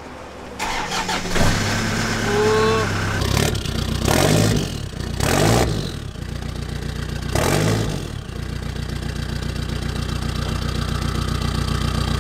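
Toyota Hilux N70 diesel engine starting up, then revved three times, each rev rising and falling. It then settles into a steady idle for the last few seconds.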